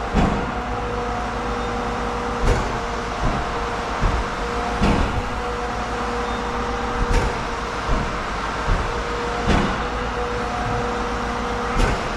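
Engine-driven machinery running steadily with a constant whine. A sharp knock repeats at even intervals of about two and a half seconds, with lighter clicks in between.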